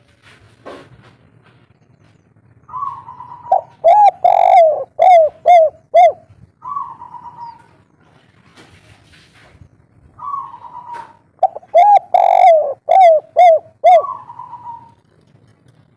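Spotted dove cooing in two song phrases, one starting about three seconds in and one about ten seconds in. Each phrase is a drawn-out opening note, a quick run of short rounded coos, and a drawn-out closing note.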